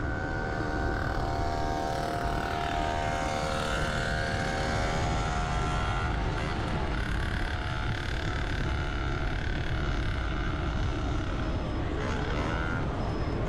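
Street traffic heard from a moving bicycle: engines of passing motorbikes and cars humming steadily over a constant low rumble of road and wind noise.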